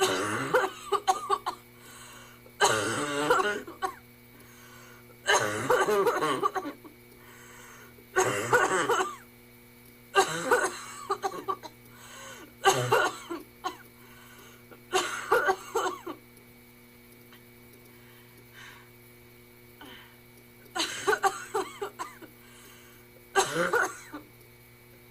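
A man coughing in repeated harsh fits, one every two to three seconds, with a few seconds of near pause before the coughing picks up again near the end.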